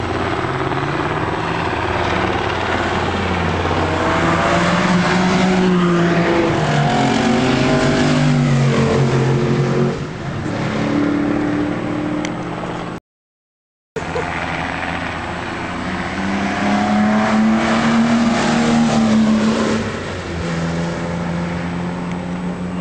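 Classic racing car engines revving hard on track, rising in pitch through each gear and dropping back at every change, again and again. The sound cuts out completely for about a second midway.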